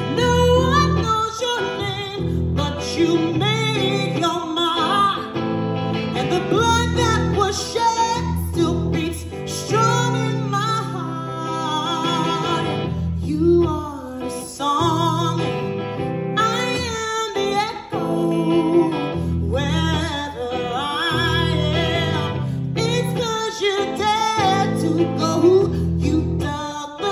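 Live song: a woman singing into a microphone while playing a hollow-body electric guitar.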